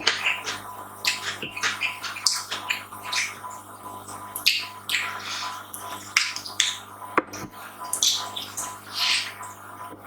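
Close-up mouth sounds of a person eating: chewing and lip smacks in short, irregular bursts, several a second, with sharp clicks.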